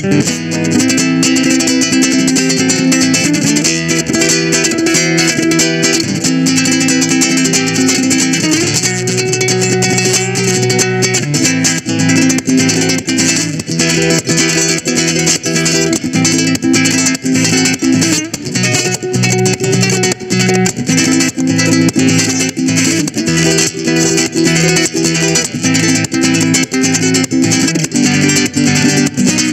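Solo acoustic guitar fingerpicking an instrumental piece, rapid plucked notes over lower bass notes that change every second or two.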